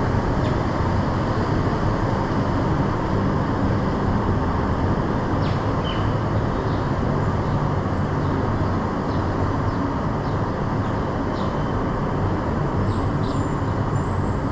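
A row of building air-conditioning units running, giving a loud, steady hum and fan noise with no let-up.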